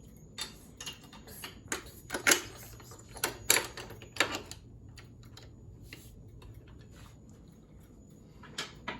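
Sharp mechanical clicks and clacks of a fire alarm pull station being worked by hand, a quick run of snaps in the first few seconds, then sparser ticks, with two more clacks near the end.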